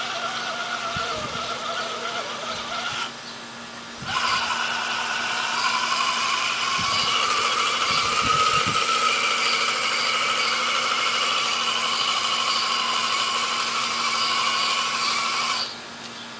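Electric motor and gears of a radio-controlled truck whining steadily. It stops about three seconds in and starts again a second later at a higher pitch, then cuts off near the end. A few low knocks come around the middle.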